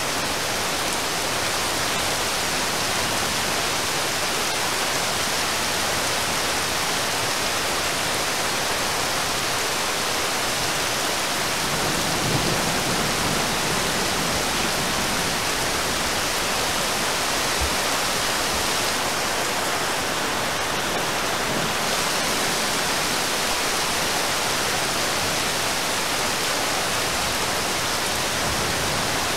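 Heavy rain falling steadily on water: an even, unbroken hiss.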